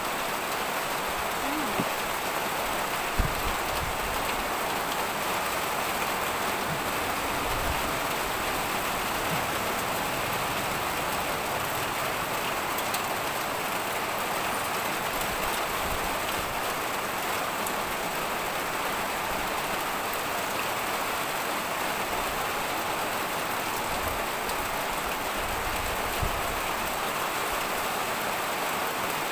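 Steady rain falling, with a couple of brief clicks a few seconds in.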